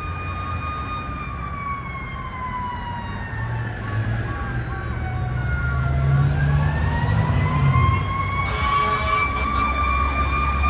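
Fire engine siren wailing: the pitch falls slowly for about five seconds, then climbs back up, over the low rumble of the truck's diesel and idling traffic. Near the end a faster, warbling siren pattern joins in.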